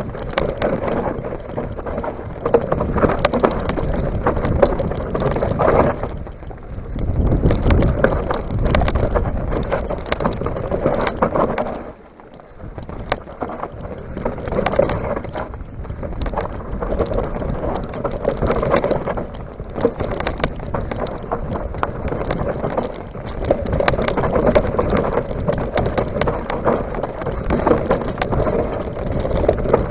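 A mountain bike descending a rough dirt and gravel trail: tyres crunching and the bike rattling and clattering over the uneven ground, with wind rushing on the microphone. It eases off briefly about twelve seconds in.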